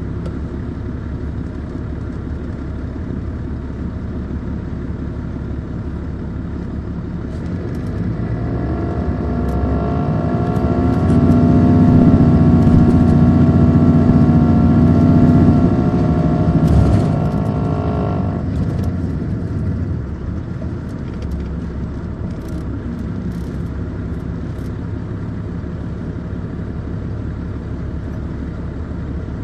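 MCI D4500CL coach's Caterpillar C13 diesel engine running steadily, then working harder from about seven seconds in: it grows louder and its pitch climbs, holds high for several seconds, and eases back to a steady drone near twenty seconds. A few light clicks come in the second half.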